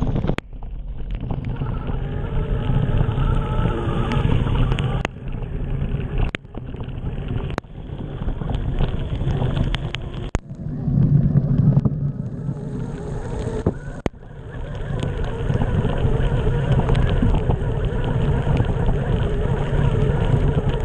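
Steady rushing of rain and running water, heavy in the low end with wind buffeting on the microphone. The sound breaks off abruptly and resumes several times.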